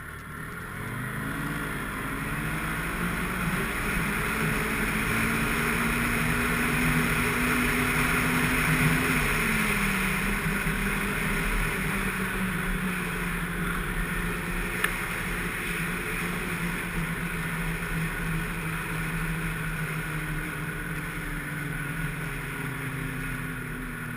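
Snowmobile engine running under way, its pitch climbing over the first couple of seconds as it speeds up, dropping a step about ten seconds in, then holding steady, with a steady hiss of track and snow. A single sharp click about fifteen seconds in.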